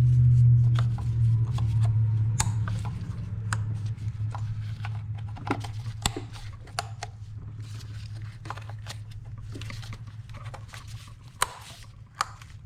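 Sharp plastic clicks and light rattling as the ignition coil packs' wiring-harness connectors are plugged in and their locks pushed down, over a steady low hum that slowly fades away.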